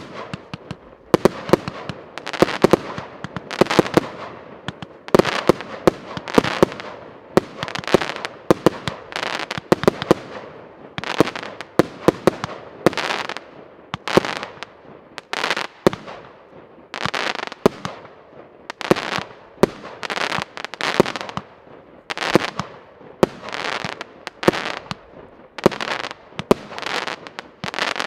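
A 200-shot, 1-inch fireworks cake (Piroff 'Ivanhoe') firing continuously: a rapid series of sharp bangs, about one to two a second, each followed by a short crackle of sparks.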